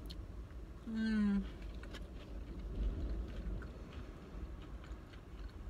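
A woman chewing a mouthful of food, with a short hummed "mmm" through closed lips about a second in and faint chewing clicks. Under it, wind rumbles steadily against the car.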